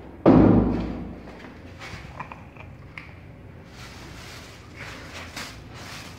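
A loud thump just after the start, fading over most of a second. From about halfway on, a clear plastic bag of dry cat food crinkles and rustles in short crackly bursts as it is handled while a kitten eats from it.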